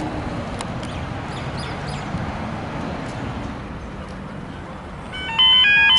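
Road traffic rumbling with a few faint bird chirps. About five seconds in, a Westinghouse Hybrid electronic level-crossing bell starts ringing loudly in a rapid repeating ding: the crossing has activated for an approaching train.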